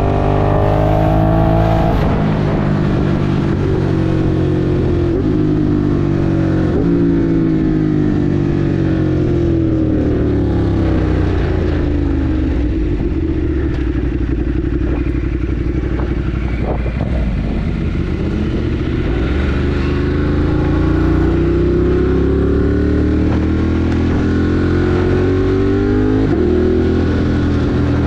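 Ducati Monster 1200 R's 1198 cc L-twin engine under way. It revs up and drops at a gear change about two seconds in, then winds down steadily as the bike slows and holds a steady pitch for a few seconds. Near the end it revs up again, with another shift and a fresh climb.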